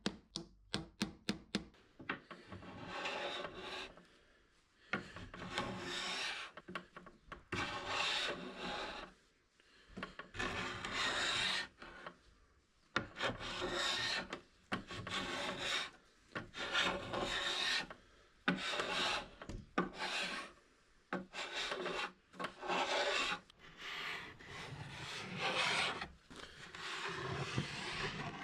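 Several quick hammer taps driving small tacks into wood, then long rubbing strokes across a wooden surface, one every second or two with short pauses between.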